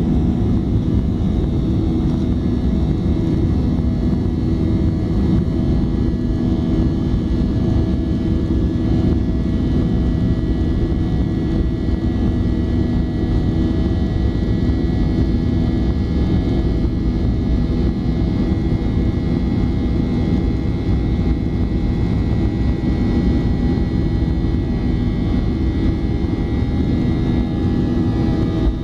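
Boeing 737-800's CFM56-7B turbofan engines running at takeoff power, heard from inside the passenger cabin: a steady, loud rumble with several steady whining tones laid over it.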